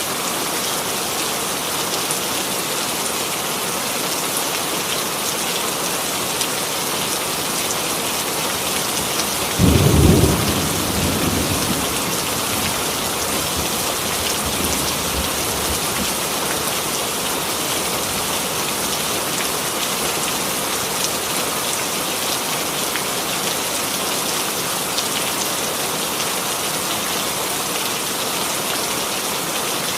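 Steady rain sound effect, a dense even hiss of rainfall, with a single thunderclap about ten seconds in that breaks suddenly and rumbles away over a couple of seconds.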